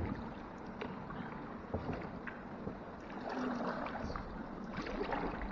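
Kayak being paddled and manoeuvred: paddle strokes splashing and dripping over a steady background of running water, with a sharp knock at the very start.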